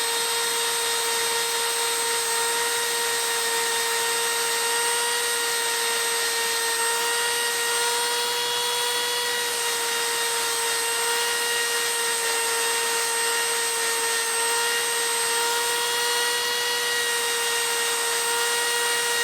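A high-speed power tool running steadily, as used to sharpen hedge trimmer blades: a constant high whine over a steady hiss, with no change in pitch.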